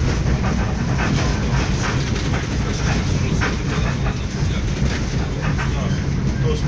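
Passenger train running, heard from inside the carriage: a steady low rumble of the wheels on the track with scattered faint clicks.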